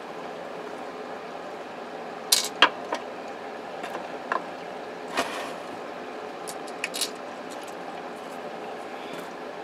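Scattered sharp clicks and light knocks of cordless phone handset parts (plastic shell and circuit board) being handled and set down on a desk, loudest a little over two seconds in, over a steady background hiss.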